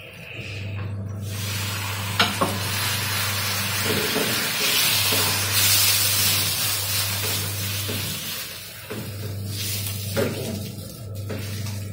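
Ghee sizzling on a roti on a hot iron tawa as it is poured and spread over the bread. The sizzle starts about a second in, is loudest in the middle and dies down near the end, with a few light knocks.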